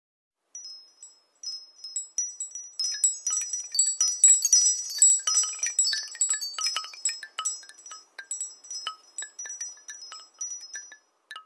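A cascade of high, ringing chime-like tones struck in quick irregular succession, thickening a few seconds in and thinning out near the end.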